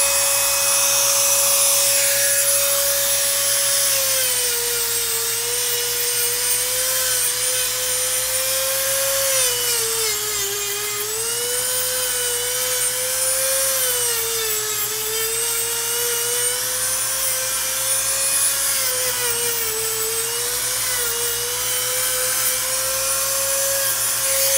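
Corded rotary tool grinding a dog's toenails: a steady motor whine whose pitch dips and recovers several times.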